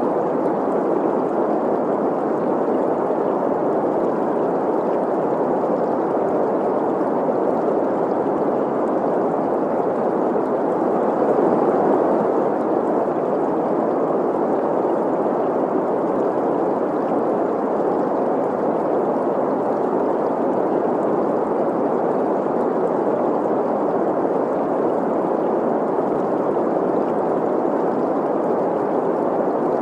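Steady synthetic green noise, a hiss concentrated in the middle of the range around 500 Hz, blended with the even rush of a flowing stream. Level and character stay unchanged throughout.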